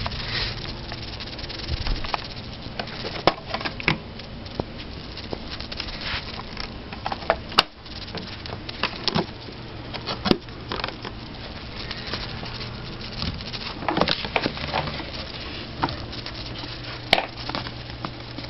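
Plastic body and parts of an Electrolux Renaissance canister vacuum, not running, being handled and opened: scattered clicks, knocks and rustles, with three sharp snaps.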